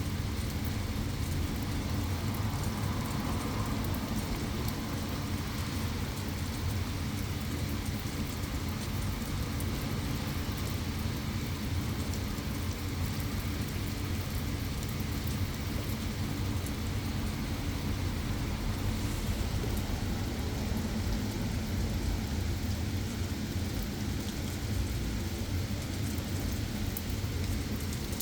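Heavy rain falling steadily: a dense, unbroken wash of noise, deepest in the low end, with no let-up.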